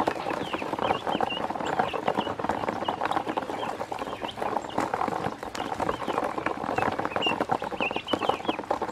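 A flock of ducklings peeping in short, high chirps while their bills rapidly tap and scrape against a plastic basin as they eat feed, a busy, continuous patter of clicks.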